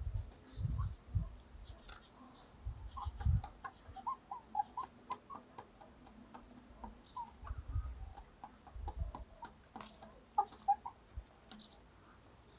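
Young cockerels giving many short, soft peeping clucks, mixed with light clicks of beaks tapping a metal water pot as they drink. Low thumps come near the start, around three seconds in and again near eight to nine seconds.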